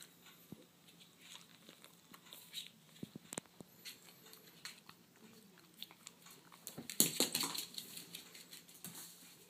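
Poodles' claws clicking and scrabbling on a wooden floor during a game of fetch: scattered light clicks, then a quick dense run of clicks and knocks about seven seconds in as one dog dashes off.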